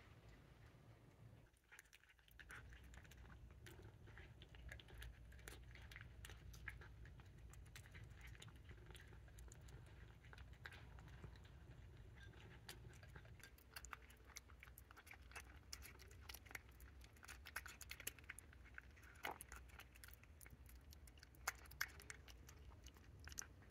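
Faint, irregular small clicks and crunches over a low steady hum, coming thicker through the second half.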